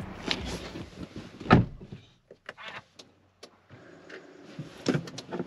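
Getting into a Seres 3 electric SUV and shutting the driver's door: handling and rustling, then one loud door thud about a second and a half in. After that the closed cabin goes very quiet, with a few light clicks near the end.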